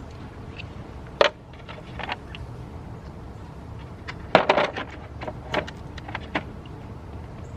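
Scattered clicks and clatters of a screwdriver and small screws being handled during door panel work. There is one sharp click about a second in, a quick cluster of knocks and rattles around four and a half seconds, and a few lighter ticks after that.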